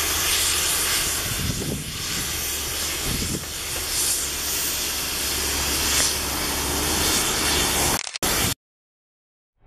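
Steady rushing hiss of wind, which stops abruptly near the end.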